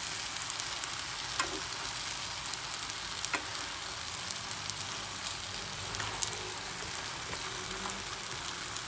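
Spaghetti in tomato sauce sizzling in a hot pan while it is turned over with a wooden spoon, a steady sizzle with a few light clicks and knocks of the spoon against the pan.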